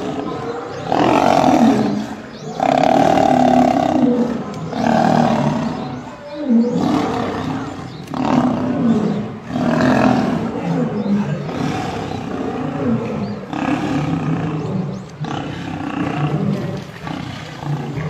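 Lions growling in a fight, a male pinned on his back by several lionesses: a run of loud calls, one every second or so, with short breaks between them.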